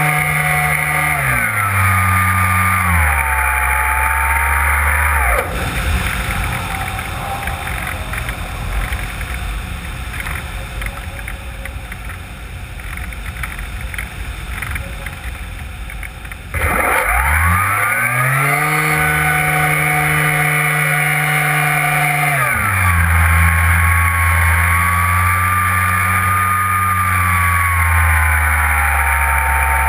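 Brushless electric motor and propeller of an RC plane: a pitched whine that steps down in throttle over the first few seconds, then cuts out about five seconds in, leaving air rushing over the wing-mounted camera while the plane glides with the propeller stopped. About eleven seconds later the motor spools up sharply to a high steady whine, then drops to a lower, slightly wavering throttle some six seconds after that.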